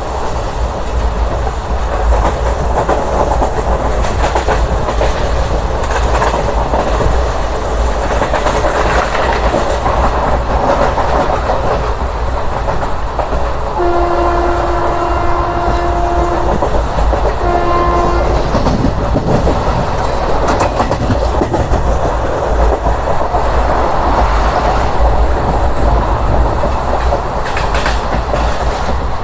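Express train running at speed, heard from an open coach doorway: a steady rumble and rattle of wheels on the rails. About halfway through, the locomotive's horn sounds one long blast of about two and a half seconds, followed a second later by a short one.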